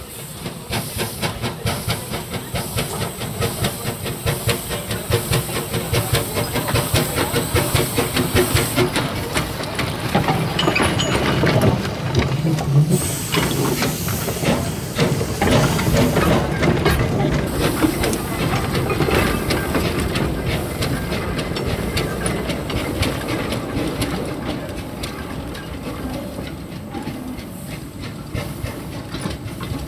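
The 1924 Wee Georgie Wood narrow-gauge steam locomotive chuffing in an even rhythm with a loud hiss of steam, which cuts off about nine seconds in. It then passes close by, and its carriage rolls away on the rails, the sound fading toward the end.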